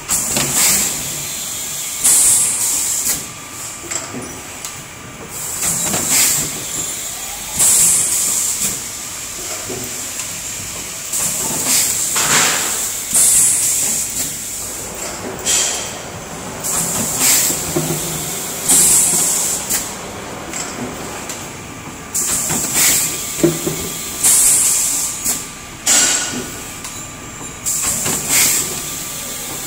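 A 10-litre two-cavity full-servo PET bottle blowing machine running its automatic cycle. Loud bursts of compressed-air hiss come about every five and a half seconds, each marking the blowing air being vented at the end of a blow, with clicks and clatter from valves and moving parts in between.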